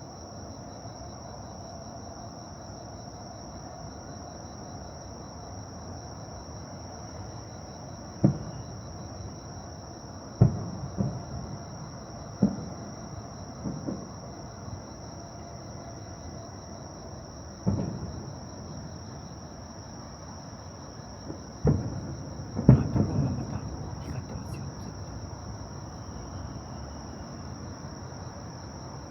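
Distant fireworks shells bursting as a series of low booms, each dying away with a short rumble. There are about eight, starting about a quarter of the way in, several close together, the loudest about three-quarters through. Underneath, insects chirr steadily in a high, unbroken drone.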